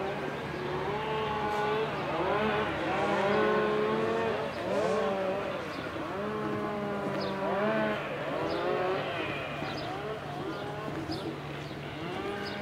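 Several people's voices talking, over a steady low hum.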